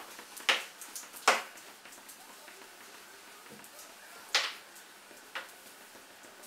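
Four short, sharp clicks and taps, spread a second or more apart, from a microfibre cloth and fingertips working over the plastic Fresnel lens and housing of a mini LED projector while polishing off marks.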